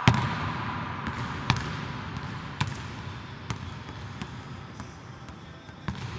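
Basketball bouncing on a hardwood court, echoing around a large empty arena. There are about seven bounces spaced roughly a second apart. The first, right at the start, is the loudest, and the following ones get fainter.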